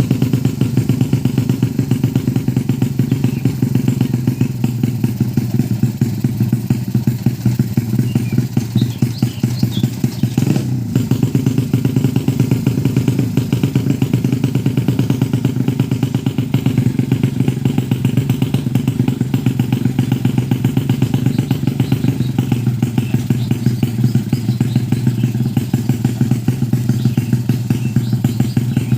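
Tuned 130cc drag-racing motorcycle engine running steadily at a constant speed, with a fast, even beat of firing pulses and no revving up or down.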